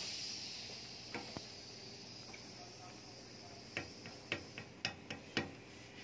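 Hand hammer striking a metal part held on a bench vise: two taps about a second in, then a quick run of light taps, about four a second, near the end. A hiss fades out during the first few seconds.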